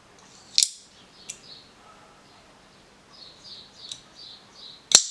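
Small metallic clicks from a Benchmade 3551 Stimulus-style automatic knife as its safety switch is worked. Near the end comes a single sharp, loud snap of the spring-driven mechanism, the loudest sound.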